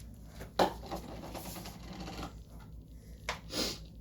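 Kitchen utensils knocking and scraping against a dish: one sharp knock about half a second in, a second or so of scraping, then two more short scrapes near the end.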